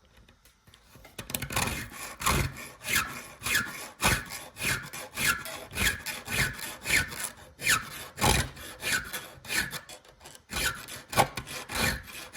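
A round chainsaw file scraping back and forth across the steel cutters of a saw chain in quick hand strokes, about two a second, starting after a short pause. It is deepening the cutters' hook toward about half the file's width.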